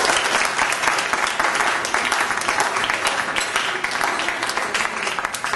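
Audience applauding, a dense patter of many hands clapping that eases slightly toward the end.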